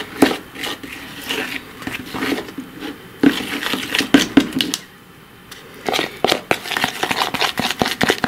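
A metal fork scraping and clicking against a plastic bowl as it stirs thick PVA glue and rice flour paste. The taps and scrapes pause briefly about five seconds in, then come quicker toward the end.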